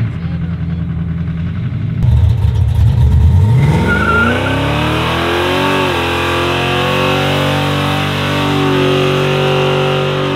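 V8 car engine in a power skid: a low rumble, then the revs climb from about four seconds in and are held high and steady.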